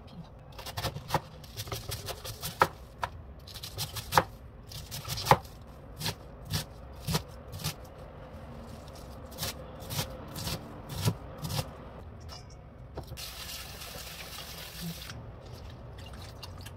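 Kitchen knife chopping cabbage on a plastic cutting board: sharp, uneven knocks about two a second that stop a little past two-thirds of the way through. Near the end comes a couple of seconds of steady hiss.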